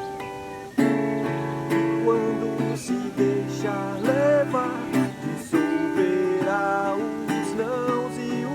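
Acoustic guitar music: strummed chords come in fully about a second in, with a wavering melody line over them.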